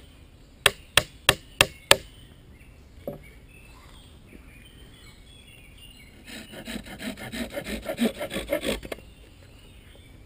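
A run of five sharp wooden knocks, about three a second, in the first two seconds. About six seconds in, a small hand saw saws quickly through a thin green wooden rod for about two and a half seconds, trimming the rod's end.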